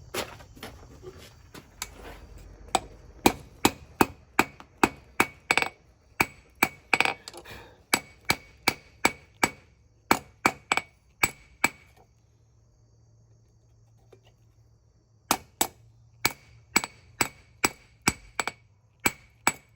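Hand-hammer blows on hot spring steel on an anvil, forging a small knife's blade and tang: sharp strikes about two a second, each with a ringing note. The hammering stops for about three seconds in the middle, then starts again.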